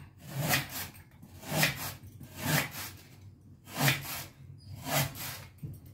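Kitchen knife slicing through banana stem onto a wooden chopping board: five cutting strokes, roughly one a second.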